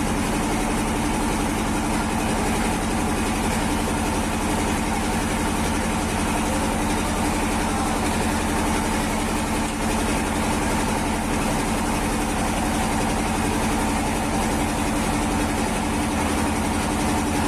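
Boat engine running steadily, a constant drone with no change in speed.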